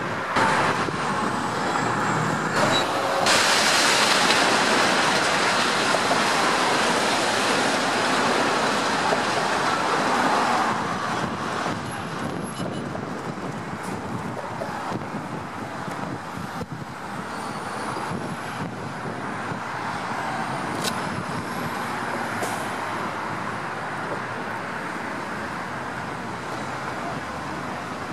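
A 100-foot section of a large building's wall collapsing: a sudden crash about three seconds in and several seconds of loud, dense rumbling from falling debris. It then settles into a steadier, quieter background rumble.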